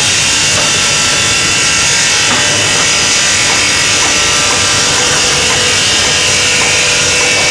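Loud, steady din of aluminium foundry casting machinery: a constant high hiss over a faint hum.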